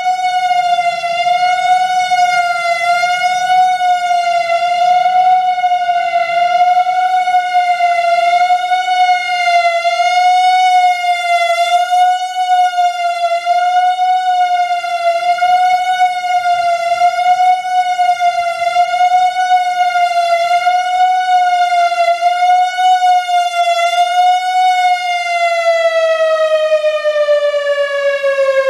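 Whelen WPS-3000 electronic outdoor warning siren sounding a steady tone with a slight, regular waver in pitch. About 25 seconds in, the pitch begins to slide steadily downward as the tone winds down.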